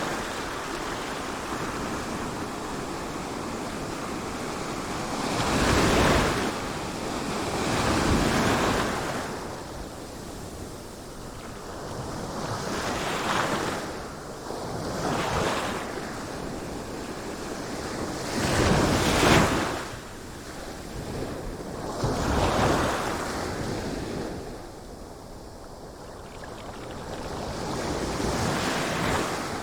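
Ocean surf: waves break and wash in surges every few seconds over a steady rushing hiss. The loudest surge comes about two-thirds of the way through.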